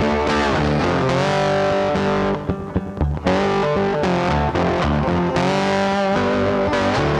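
Background music led by distorted electric guitar, with a short break in the middle.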